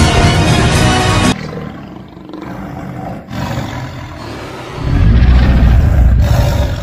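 Background music that cuts off abruptly about a second in, followed by a monster roar sound effect; a loud, deep rumble comes in near the end.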